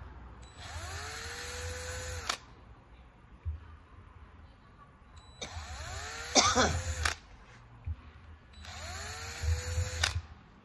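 Cordless drill driving a small twist bit into a wooden instrument body, run three times in short bursts. Each burst spins up with a rising whine, holds steady while the bit cuts, and cuts off sharply. The middle burst is the loudest.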